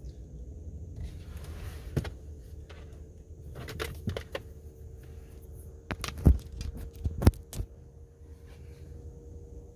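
Low rumble inside a car's cabin with the car stopped and the engine idling, broken by a few sharp clicks and knocks, the loudest a cluster about six to seven and a half seconds in.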